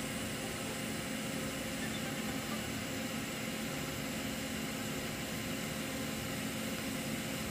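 TIG welding arc burning steadily on a steel T-joint fillet at high current: an even hiss with a steady hum under it.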